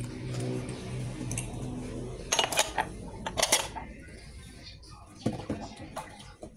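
Glass tumblers being hand-washed: sharp clinks of glass knocking against glass and the counter, in a cluster around the middle and a few more near the end, over a low steady hum.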